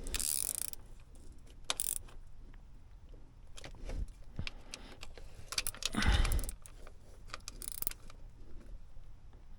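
Clicks, clinks and rattles of metal hand tools and parts being handled while a thermostat is refitted, with a louder knock about six seconds in.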